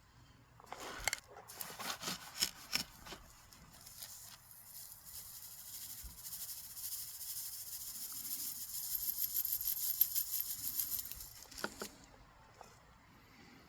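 Rocks being handled and rummaged through in a box: a few separate clacks, then a longer stretch of dense fine rattling and rustling that builds and stops about eleven and a half seconds in, with another clack or two near the end.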